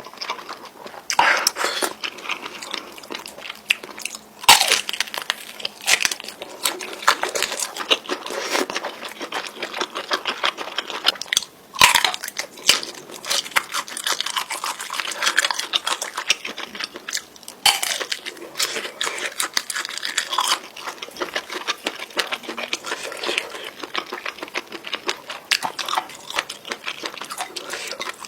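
Close-miked chewing and biting of spicy instant noodles, a long run of irregular small clicks and mouth smacks, with a few louder bites.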